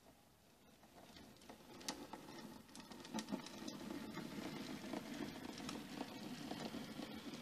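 H0e narrow-gauge model train, a small locomotive pulling passenger coaches, running along the track: a low steady hum with light, irregular clicks and rattles of the wheels on the rails, growing louder after about a second.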